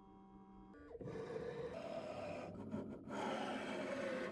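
Carvera desktop CNC mill's motors working through an automatic tool change. A steady multi-tone motor whine drops in pitch just before a second, then gives way to a quiet mechanical whirring that breaks off briefly near the three-second mark.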